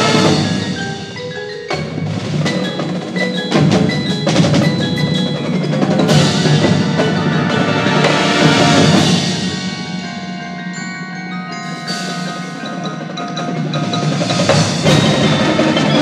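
Marching band playing, the front ensemble's mallet keyboards ringing out struck notes over sustained band chords and drums. The music eases off about ten seconds in and builds again near the end.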